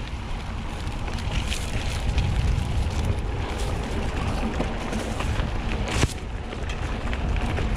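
Mountain bike riding over grass and onto a rough dirt trail: wind rumbling on the microphone over tyre noise, with scattered rattling clicks from the bike and one sharp knock about six seconds in.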